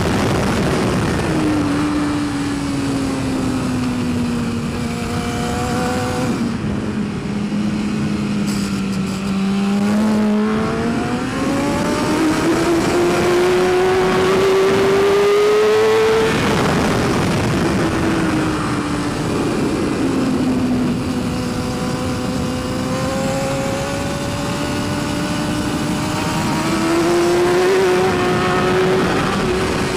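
BMW S1000RR's inline-four engine at racing speed, heard from onboard with wind rush. Its note falls over the first ten seconds, rises steadily until about sixteen seconds in, drops again, holds fairly steady and climbs once more near the end.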